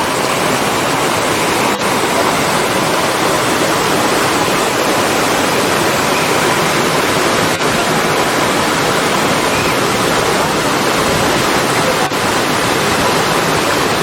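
Waterfall rushing: a loud, steady wash of falling water with no change in pitch, broken by a few split-second dropouts.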